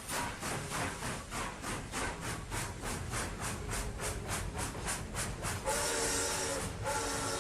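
Steam locomotive running, its exhaust chuffing in a steady rhythm of about three beats a second with a hiss of steam. Near the end its steam whistle sounds, a chord-like blast that breaks off briefly and starts again.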